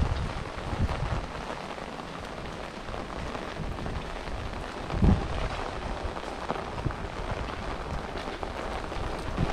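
Steady rain falling on hard surfaces, a fine continuous patter, with one brief low thump about five seconds in.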